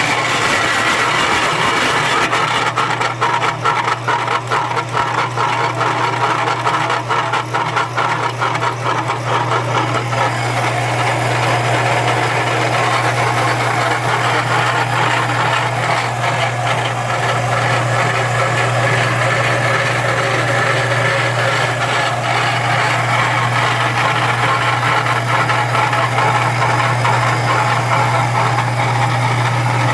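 SB-61 portable line-boring and bore-welding machine running: a steady low hum over mechanical noise, with rapid rattling for the first several seconds.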